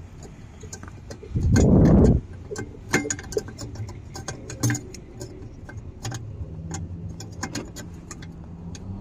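Small metallic clicks and taps of a headlight bulb being seated in the headlamp housing and its wire spring retaining clip being latched, with a loud rumbling thump of handling noise about a second and a half in.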